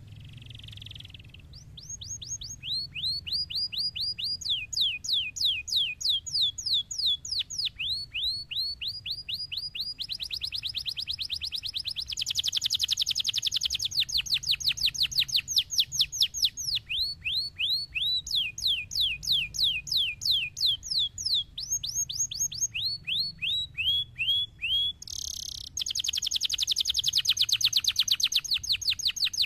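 Domestic canary singing: long runs of the same quick, high, down-sweeping note repeated several times a second, switching to a new note every few seconds, with denser buzzing rolls in between.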